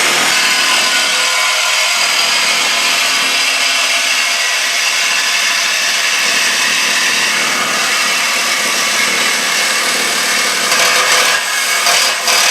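Power cutting tool cutting through the steel exhaust pipe, running as one loud steady high-pitched grind. The grind turns uneven and wavering about eleven seconds in.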